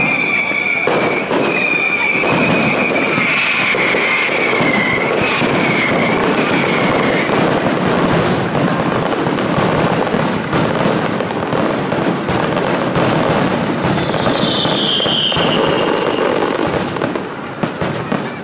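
Fireworks display in a dense barrage: bursts and crackling follow each other without a break. A high whistle wavers over the first seven seconds or so, and a short falling whistle comes near the end. The barrage thins out in the last second or two.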